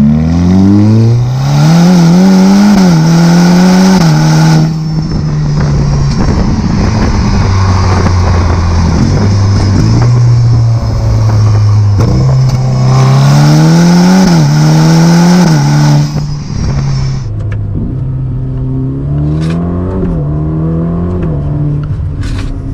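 Ferrari Roma's twin-turbo V8 under hard acceleration: the revs climb steeply and drop at each quick upshift. There are two full-throttle pulls, one at the start and one about 12 seconds in. The throttle lifts about 16 seconds in, and the engine then runs quieter with the revs rising gently.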